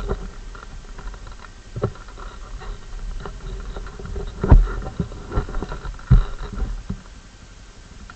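An ATV with a faint steady running hum, and irregular knocks and thumps on top of it: the strongest about halfway through and again about six seconds in.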